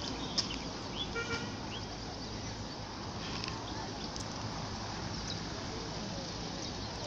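Outdoor ambience at a sports field: a steady rushing background noise with faint distant voices, a few light clicks, and a short tooting tone about a second in.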